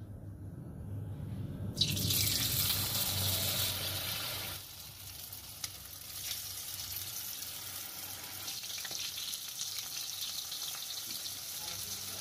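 Batter-coated banana-flower pieces dropped into hot oil in a kadai: a sudden loud sizzle about two seconds in that eases after a couple of seconds into a steady deep-frying sizzle.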